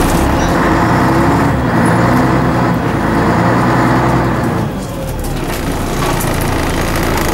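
Scania N113 double-decker bus's six-cylinder diesel engine running as the bus drives, heard from inside the upper deck. A steady engine note with a low rumble dips briefly a little under five seconds in, then picks up again.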